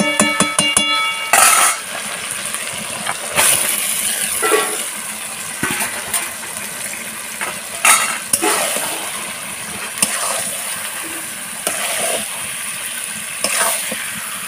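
Raw chicken pieces sizzling in hot mustard oil and fried spice paste in a kadai, with a metal spatula scraping and knocking against the pan now and then as the meat is stirred.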